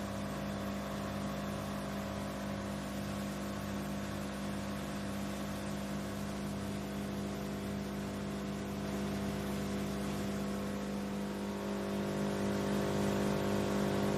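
Tractor-driven wood chipper running steadily on the PTO shaft, with no wood going through: a constant mechanical hum with a slow, even pulsing underneath, growing a little louder near the end.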